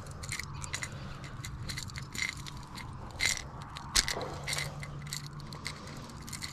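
The treble hooks of a hard topwater lure clicking and rattling in quick, irregular taps as hands try to work them out of a striped bass's mouth, with one sharper clack about four seconds in. The hooks are set deep enough that the lure won't come free by hand.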